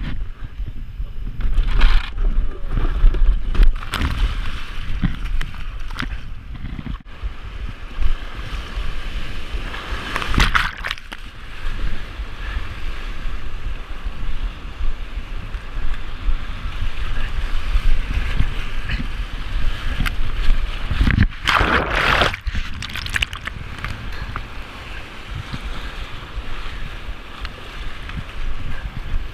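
Whitewater rapids rushing around a kayak, high snowmelt water, with paddle strokes and waves splashing over the boat; louder surges of splashing come about ten seconds in and again around twenty-two seconds.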